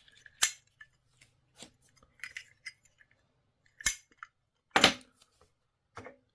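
Zippo gasoline lighter being handled: four sharp metallic clicks with faint light rattling between them, the loudest a little under five seconds in.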